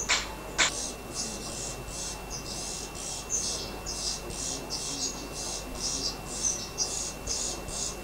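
Fledgling songbirds in the nest giving high, rasping begging calls, about three a second, after two sharp clicks in the first second.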